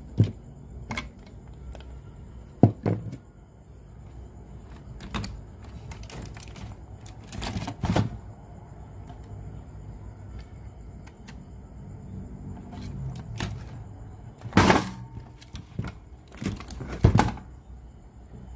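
Irregular clicks and knocks of a portable cassette radio being handled, its plastic case and controls clacking; the loudest come in a cluster near the end.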